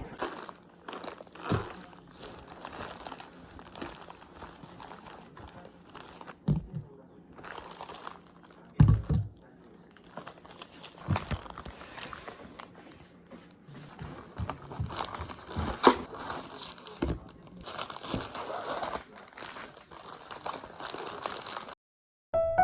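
Rustling and crinkling from things being handled at a desk, with scattered light taps and a couple of sharper knocks.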